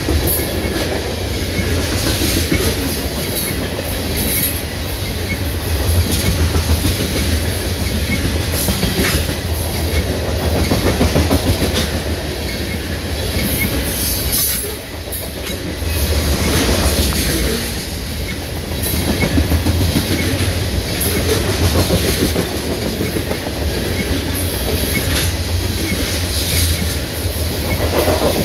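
Loaded covered hopper cars of a freight train rolling past close by: a continuous rumble of steel wheels on the rails, with frequent clicks and clacks as the wheels pass over the rail joints.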